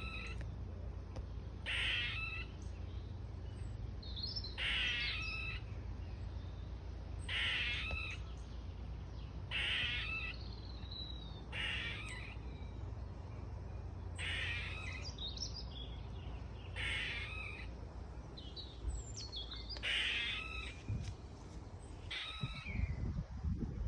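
Squirrel calling from a tree: harsh, noisy, caw-like calls repeated about every two and a half seconds, about ten in all, over a steady low rumble, with a few low knocks near the end.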